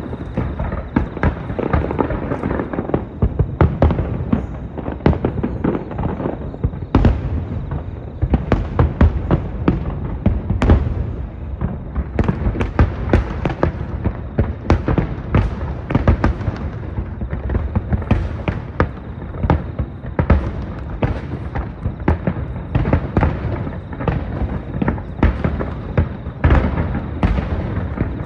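Fireworks going off in a dense, continuous barrage of sharp bangs and crackles, several a second, with deep booms underneath.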